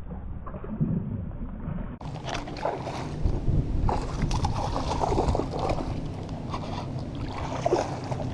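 Strong wind buffeting the microphone in irregular gusts, with water moving along the shore; the sound turns brighter and fuller at a cut about two seconds in.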